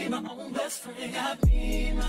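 Background music: a sung vocal line, then about one and a half seconds in a hip-hop beat drops in with a deep, sliding bass.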